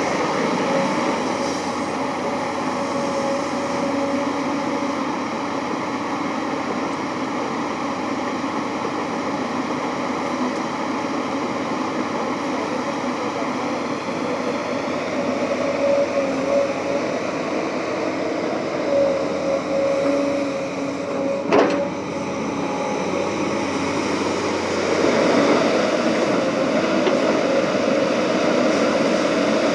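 Excavator's diesel engine running steadily, with a humming whine that wavers in pitch. There is one sharp knock about two-thirds of the way through, and the running grows a little louder near the end.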